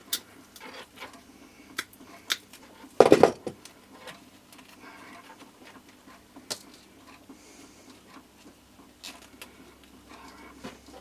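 Small clicks and rustles of hands working with masking tape and wires, with one short, louder rasp about three seconds in.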